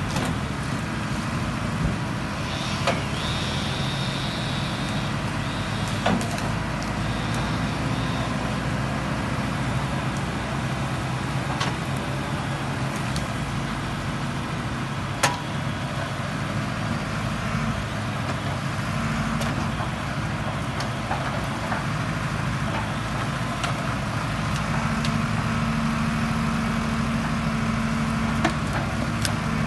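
Tractor engine running steadily as it powers a hydraulic grapple crane on a forestry trailer that is loading logs, with a few sharp knocks heard over it. The engine gets a little louder near the end.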